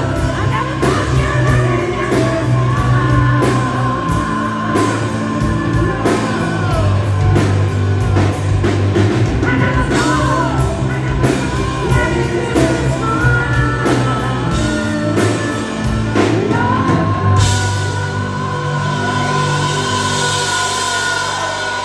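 Live hard-rock band with a male lead singer, heard over the venue's PA: long held sung notes over drums, bass and guitar. About seventeen seconds in the drums stop and the band holds a ringing chord.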